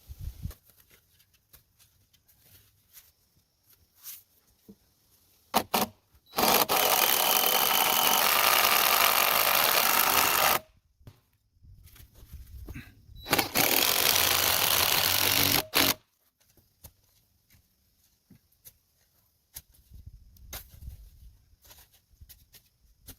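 A power tool running in two bursts, about four seconds and then about three seconds, with a few sharp knocks of work around them.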